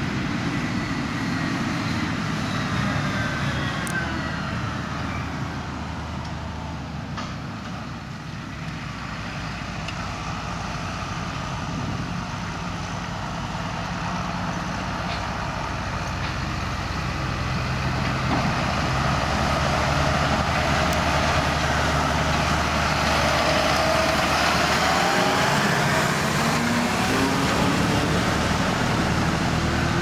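Farm tractors' diesel engines running as they pull trailers past, the engine pitch shifting as they go. It grows louder in the second half as a tractor comes closer, with an engine note rising near the end.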